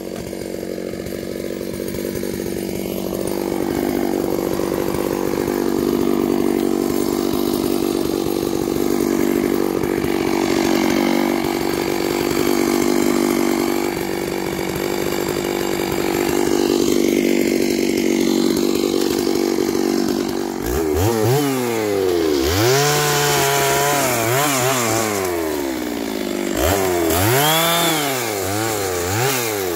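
Stihl chainsaw running steadily at low speed, then about two-thirds of the way through revved up and down over and over.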